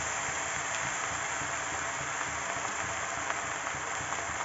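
Noodles and vegetables sizzling steadily in a hot metal kadhai, with a few faint clicks from the pan.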